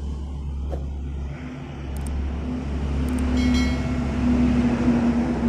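A motor vehicle's engine running close by, growing louder over the first few seconds and then holding steady.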